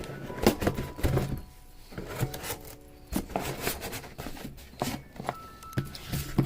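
Handling noises as a new carburetor and its packaging are picked up and turned over: scattered clicks and knocks with some rubbing.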